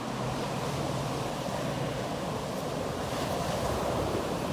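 Ocean surf breaking and washing up over sand and rocks: a steady rush that swells a little about three seconds in.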